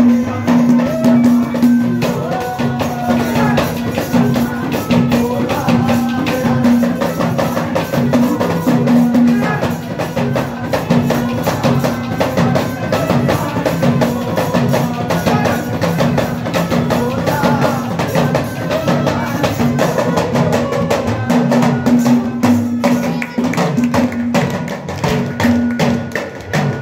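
Instrumental bhajan music: an Indian banjo (bulbul tarang) playing the melody over a held note, backed by a fast, dense rhythm on deru drum and clay pot (ghada).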